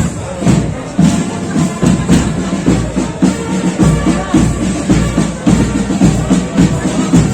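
Marching band playing with a steady drum beat, about two beats a second.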